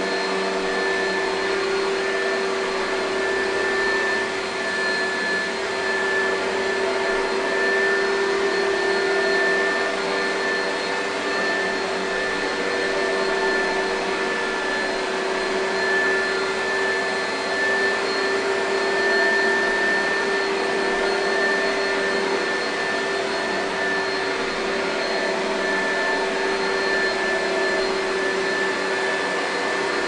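2002 Oreck XL2 (XL3800H2) upright vacuum cleaner running steadily, with a steady hum and whine over the rush of air, while it is pushed across carpet. Its loudness swells and dips slightly as it moves.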